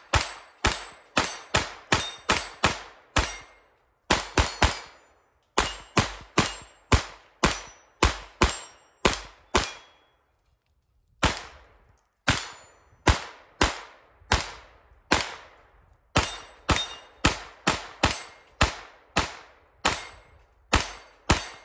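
Kel-Tec CP33 .22 LR pistol firing Armscor 40-grain standard velocity rounds semi-automatically: a long string of single shots at about two a second with a few short pauses. The gun cycles every round without a jam.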